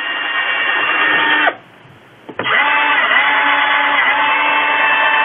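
Electric drill running steadily as it bores holes into the Sanpera pedal's foot-switch pad. The drill stops about a second and a half in, then starts again under a second later.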